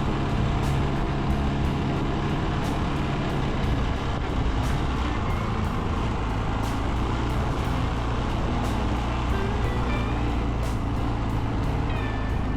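Background music with a steady beat, laid over the running single-cylinder engine of a Yamaha Ténéré XT660Z motorcycle.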